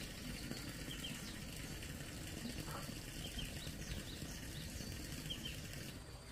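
Outdoor ambience of small birds chirping faintly, short high notes scattered every second or so, over a steady background hiss.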